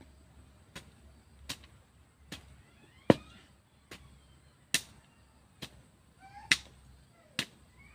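A jok, the Isan hand hoe, chopping into soil while digging a vegetable bed, in a steady rhythm of about nine strikes, a little under a second apart. The strikes about 3 and 6.5 seconds in are the loudest.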